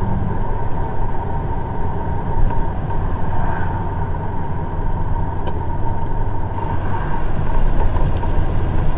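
A truck's engine and road noise, heard from inside the cab while driving at a steady pace, with a thin steady high tone above the rumble.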